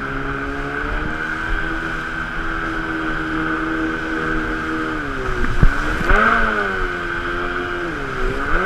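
Jet-drive outboard motor of an inflatable river boat running hard through rapids, with the rush of the water around the hull. The revs hold steady, dip and recover about five and a half seconds in, and dip again near the end, and there is one sharp knock at the first dip.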